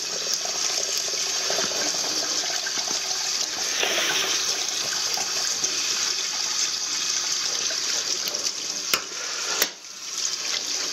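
Kitchen tap running into a stainless steel sink, the water splashing over a flannel coffee filter as it is rinsed by hand. Two sharp knocks about nine seconds in, then the water sound briefly drops.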